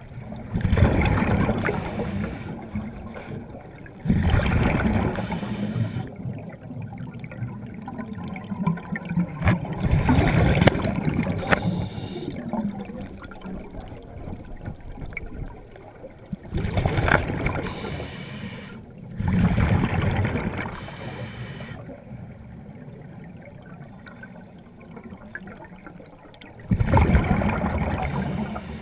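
Water bubbling and gurgling in loud surges every few seconds, each lasting a second or two, over a steadier watery background.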